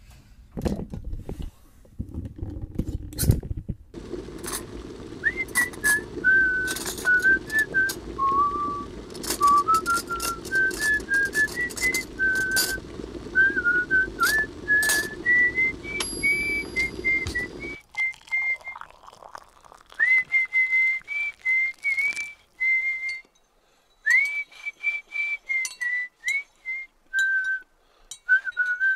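A tune whistled in single held notes that step up and down in pitch, over scattered short clicks. A low rumbling noise runs underneath for the first half and cuts off suddenly partway through.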